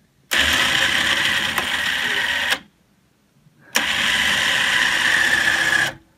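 Old winch on a homemade truck plow, run twice by its hand control: a steady motor whine for about two seconds as the plow is lowered, a short pause, then another two-second run raising it again. Each run starts and stops abruptly.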